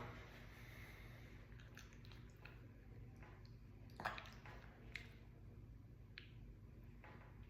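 Near silence: a low room hum with a few faint, short clicks, the sharpest about four seconds in.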